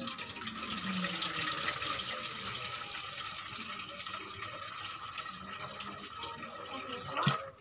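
Water poured from a plastic jug into a steel cooking pot: a steady splashing stream that stops suddenly near the end.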